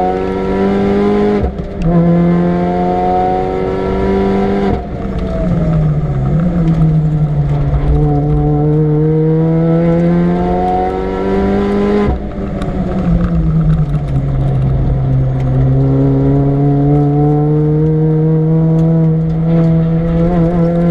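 Supercharged Mini Cooper S R53 1.6-litre four-cylinder engine at full throttle on track. It revs up through the gears with sharp breaks at the changes, drops in pitch twice as the car slows for corners, and pulls hard again each time.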